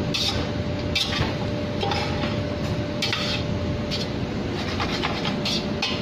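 Slotted spatula scraping and stirring rice in a large stainless steel pot, in short strokes roughly once a second, over a steady low rumble with a faint hum.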